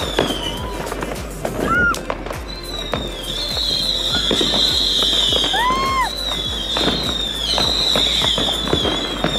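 New Year's Eve fireworks: a ground fountain firework spraying sparks with a high, wavering whistle, amid frequent bangs and crackles from fireworks all around. Two short swooping whistles sound, one about two seconds in and one near the middle.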